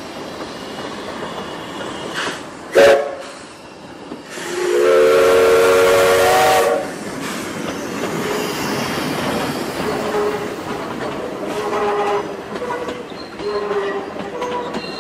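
Steam locomotive passing with its whistle: a brief sharp sound about three seconds in, then a long whistle blast of about two seconds that rises slightly in pitch and is the loudest sound. After it the coaches roll by with wheels clicking over the rail joints and short thin squeals.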